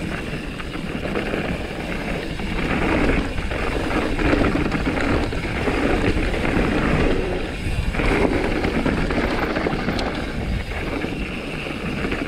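Mountain bike ridden fast down a rough, rocky trail: the tyres running over stones and the bike rattling over the bumps.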